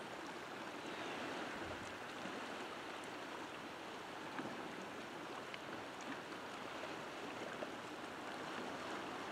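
Calm sea water washing and lapping among shoreline rocks: a steady, faint rush with a few small ticks of water here and there.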